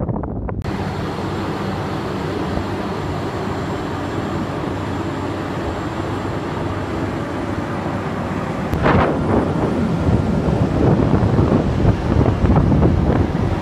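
Boat engine running steadily under a rush of wind and water noise. About nine seconds in, a sudden louder rush comes, and the sound stays louder and rougher after it.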